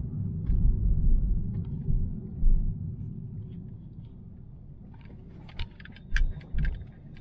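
Low road and engine rumble inside a moving car's cabin, loud at first and fading away over the first few seconds. A few sharp clicks and light rattles come near the end.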